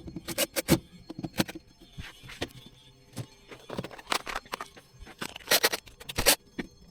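Irregular clicks, knocks and scraping of hand work with tools and small fittings, such as mounting and wiring a wall switch. The loudest cluster of knocks comes about five and a half to six seconds in.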